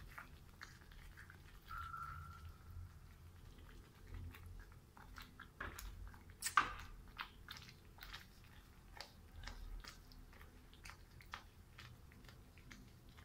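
Spatula stirring thick curry gravy in a frying pan: irregular soft squelches and light scrapes, with one sharper clack against the pan about six and a half seconds in.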